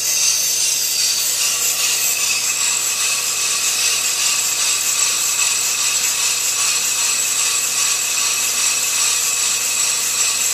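Ammco brake lathe turning a hubless brake rotor while its cutting bits shave the rotor face: a steady scraping hiss with a thin high whine. There is no squeal or growling, the sign of a smooth, chatter-free cut.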